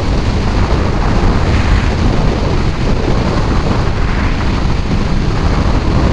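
Wind rushing and buffeting over the microphone of a Kawasaki Ninja 650 sport bike at highway speed, a steady, loud, low rumble with no break.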